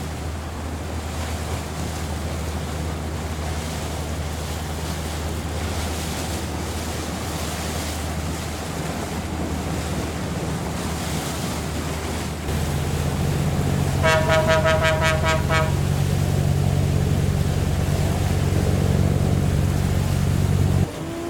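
A boat's engine running with a steady low hum that gets louder about twelve seconds in, and a horn sounding once for under two seconds a couple of seconds later. The engine hum cuts off suddenly near the end.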